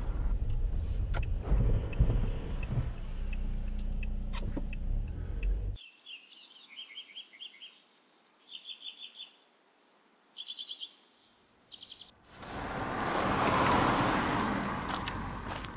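Low engine rumble heard from inside a minibus taxi. About six seconds in it cuts off abruptly, leaving small birds chirping in short quick trills. Near the end a car goes by, its noise swelling and then fading.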